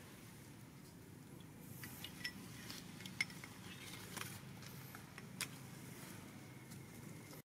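Faint outdoor background with a handful of sharp, short clicks, roughly one a second, the loudest a little after three seconds in.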